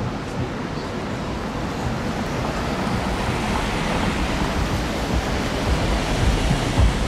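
Steady rushing noise of wind on the microphone, slowly growing louder, with low buffeting thumps in gusts near the end.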